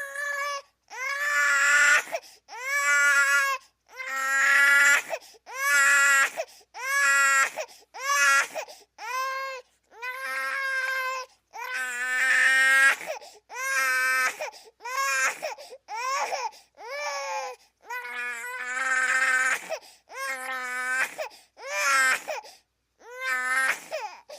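Baby-crying sound effect: a long run of loud wails, about one a second, each rising and then falling in pitch, with short breaks between them.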